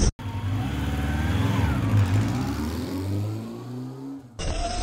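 Channel logo intro sound effect: a low, engine-style revving whose pitch steps upward, with faint whooshes over it. It cuts off abruptly near the end, when outdoor beach sound returns.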